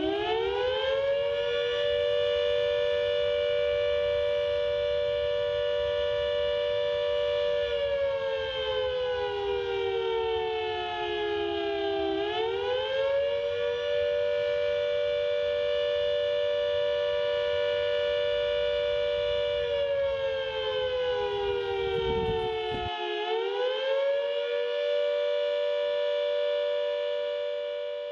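A siren wailing as a chord of several close tones: it winds up in pitch at the start, holds steady, sags lower twice (about a third and about four-fifths of the way through) and winds back up each time, then fades out near the end.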